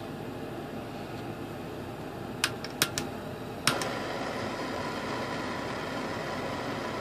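Steady whir of a workshop exhaust fan, with a few sharp clicks about two and a half seconds in. A louder click comes near four seconds in, after which the steady noise is louder.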